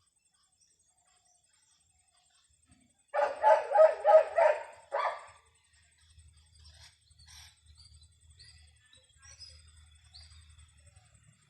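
A dog barking in a quick run of about six barks a few seconds in, followed by faint high bird chirps.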